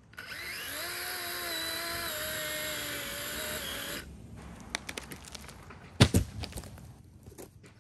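A handheld cordless power saw cutting through a tree branch, its motor whine dropping slightly in pitch under load, stopping about four seconds in. A few cracks follow, then the cut branch hits the ground with a heavy thud about six seconds in, the loudest sound.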